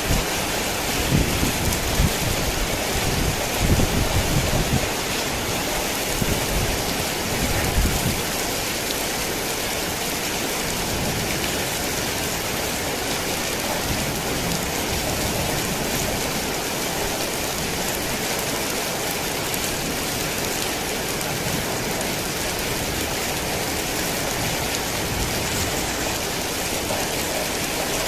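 Heavy rain falling steadily, with low rumbles of thunder through roughly the first eight seconds that then die away, leaving an even wash of rain.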